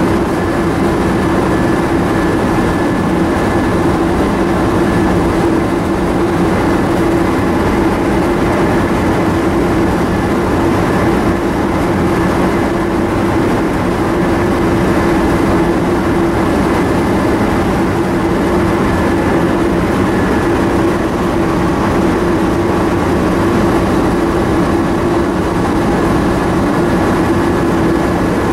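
Paint booth ventilation fans running: a loud, steady drone with a constant hum through it.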